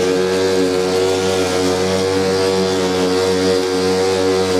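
Milwaukee M18 FUEL 21-inch cordless lawn mower running, its blade spinning as it cuts thick grass and throws it out of the side discharge chute: a steady, even hum.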